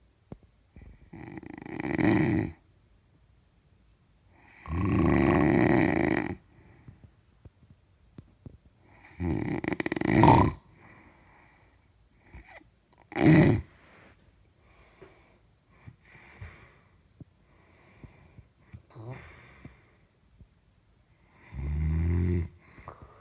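Loud snoring: five long, rasping snores at uneven intervals of a few seconds, with fainter snorts and breaths between them. The last snore, near the end, has a low, rattling pitch.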